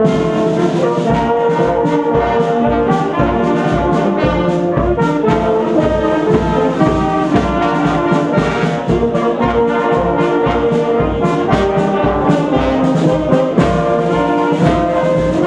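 Brass band of flugelhorns, tenor horns and baritones playing a tune together: held, pitched notes over a steady beat in the bass.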